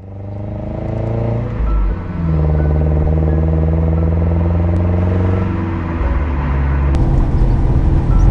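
Car engine running as the car drives, a steady note that shifts pitch a couple of times, fading in from silence. About seven seconds in it gives way to a louder, rougher rumble of the car on a gravel track, heard from inside the cabin.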